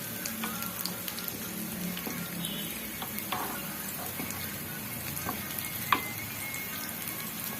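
Garlic frying in olive oil in a pan on low heat: a steady gentle sizzle with scattered small pops and one sharper pop about six seconds in, as the garlic slowly browns.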